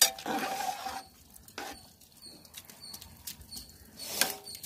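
A perforated steel ladle stirring rice in a large aluminium pot of boiling biryani liquid. It scrapes and clangs against the pot at the start, then gives a few sharp knocks against the rim, the loudest about four seconds in.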